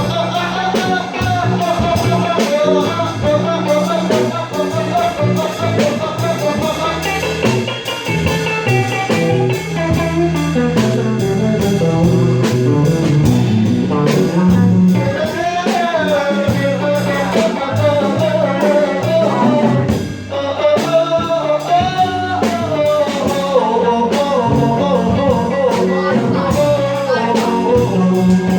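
Live blues jam: a guitar plays a lead line full of bent notes over bass guitar and a drum kit.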